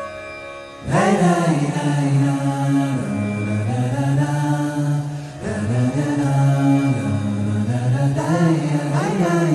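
A man's voice chanting in long held notes that slide between pitches, beginning about a second in as a flute tune ends.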